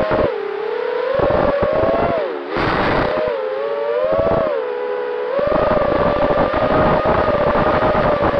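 Brushless motors and propellers of a 220 mm FPV quadcopter (2306 2400KV motors) whining in flight, heard from the onboard camera. The pitch dips and climbs with the throttle several times, then holds steady and high over the last few seconds, with wind rushing over the microphone.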